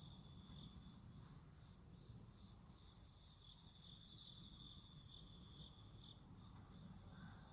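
Faint chirping of crickets: a high, pulsing trill repeating about three times a second, over near silence.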